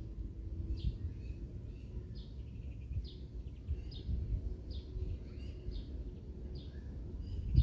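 A bird calling with short, high chirps, repeated about once a second, over a steady low rumble.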